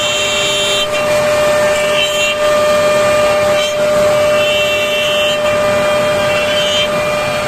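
Woodmaster CNC tenoning machine's spindle running with a steady whine while its small cutter mills a tenon into the end of a wooden rail. A shriller cutting sound rises over the whine a few times as the cutter works through the wood.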